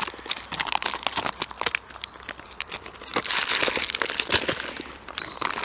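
Plastic and foil food wrappers crinkling and rustling as ration-pack items are handled and sorted, with a quieter spell in the middle.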